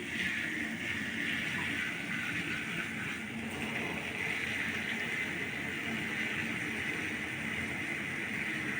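Shower water spraying steadily in a continuous even hiss.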